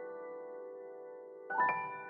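Background piano music: a held chord slowly fading, then new notes struck about one and a half seconds in.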